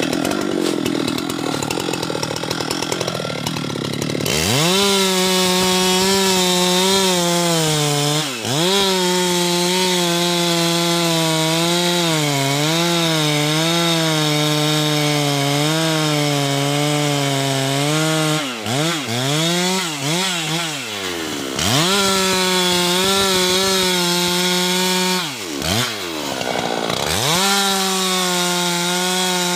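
Husqvarna two-stroke chainsaw cutting into a teak trunk. About four seconds in it is revved to full speed, its pitch sagging and wavering as the chain bites, and it drops off and revs back up sharply about three times.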